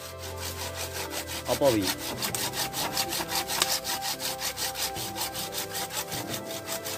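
Hand saw cutting through a serut (Streblus asper) stem in quick, regular back-and-forth strokes that start about a second in. A short falling call sounds about a second and a half in.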